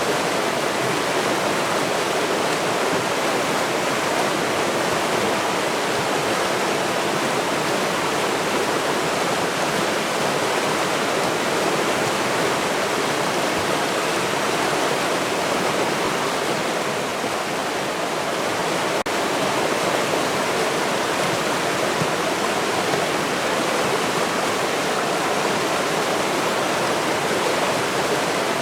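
A river's water rushing, a steady and unbroken flow.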